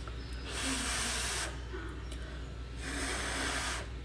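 Two long puffs of breath close to the microphone, each about a second, the second near the end, over a steady low hum.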